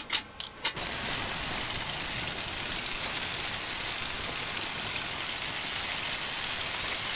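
Crappie and walleye fillets frying in hot vegetable oil in a pan: after a couple of light clicks, a loud steady sizzle starts about a second in as the fillets go into the oil.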